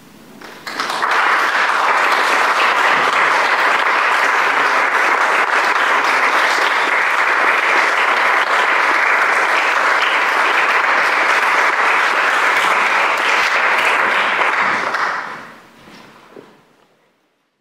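Audience applauding, starting suddenly about a second in and holding steady, then dying away with a few last claps near the end.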